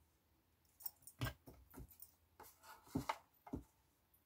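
Faint handling noises of a folded paper gift bag as a twine handle is threaded through it: about eight small irregular taps and rustles spread over a few seconds.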